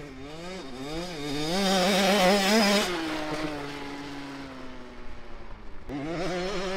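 Small two-stroke 65cc youth dirt bike engine revving in quick surges as it is ridden, loudest about two seconds in. It then holds a steady, slowly falling note before revving up again near the end.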